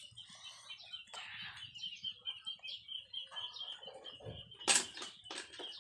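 Water being scooped and splashed from a bucket with a plastic dipper while a bicycle is washed. There is a string of short splashes and sloshes, and one louder sharp splash about five seconds in. A steady, high, fluttering chirping runs behind it.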